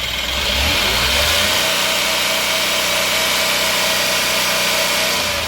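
Ashok Leyland Dost's three-cylinder diesel engine revved up from about half a second in, held steady at high revs, and dropping back near the end. It takes full revs cleanly, with no misfire, running on a newly replaced crankshaft position sensor.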